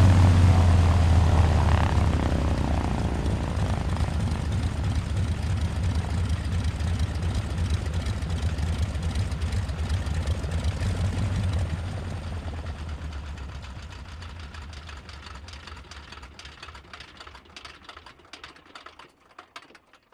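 Broussard aircraft's nine-cylinder Pratt & Whitney R-985 radial engine and propeller being shut down. It drops to a lower, steady run about two seconds in, then fades from about twelve seconds in as the propeller winds down, its separate beats slowing and dying away near the end.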